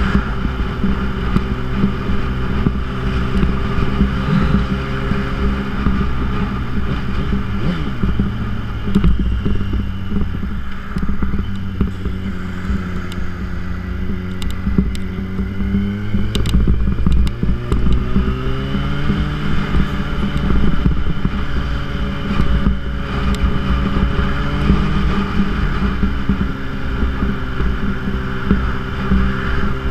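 2006 Yamaha YZF-R1's inline-four engine with a Yoshimura titanium exhaust, running under way as the bike is ridden. The engine note sinks slowly over the first dozen seconds, holds low, rises again about two-thirds of the way through, and starts climbing near the end, over a constant rumble of wind on the microphone.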